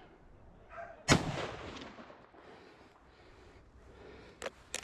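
A single loud gunshot from a hunter's gun about a second in, echoing away over the next second. Two faint clicks near the end.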